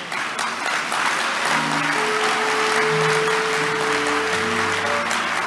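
A large audience applauding steadily, with sustained music chords held underneath from about a second and a half in.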